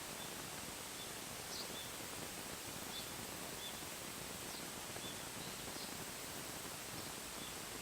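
Faint, steady outdoor background hiss with a small bird giving short, high chirps every half second to a second.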